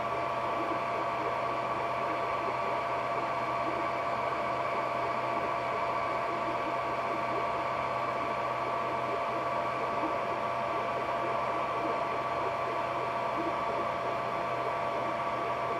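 Ender 3D printer running mid-print: a steady whine of two held tones over fan noise and a low hum, unchanging throughout.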